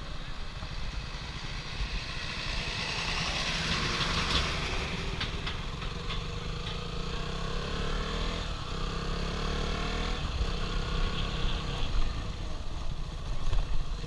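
Motorcycle engine running while the bike is ridden along a road, with rushing wind and road noise on the camera's microphone. The engine note rises and falls a few times in the middle.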